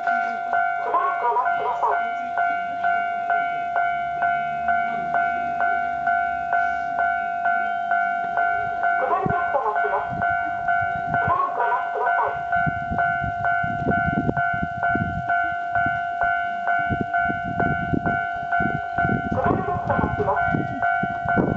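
Japanese railway level-crossing warning bell ringing steadily at about two strikes a second, with a recorded voice announcement repeating about every ten seconds. A low rumble joins in during the last third.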